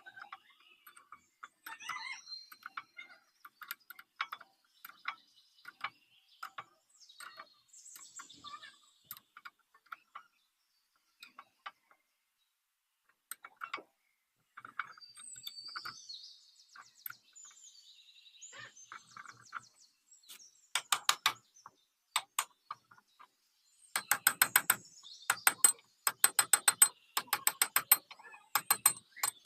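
Hand tools working on the metal parts of a sugarcane juice machine: scattered clicks and knocks, then several bursts of rapid, evenly spaced clicking near the end.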